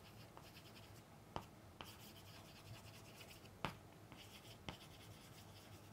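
Chalk writing on a chalkboard, faint: soft scratching strokes broken by four sharp taps of the chalk against the board.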